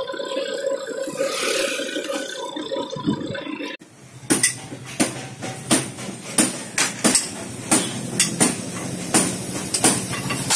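A motorbike engine running while riding, then, after an abrupt cut, repeated sharp metallic clanks of hammer blows on metal, roughly two a second.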